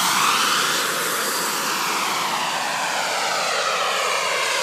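Turbine of a radio-controlled Boomerang model jet at take-off power as the jet lifts off past the runway edge. It is loudest just after the start, its pitch dropping as it goes by, then runs at a steady rushing level as the jet climbs away.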